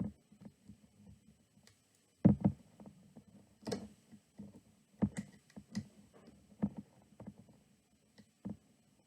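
Hands working rubber loom bands off the pegs of a plastic loom: irregular soft clicks and knocks, a few of them sharper.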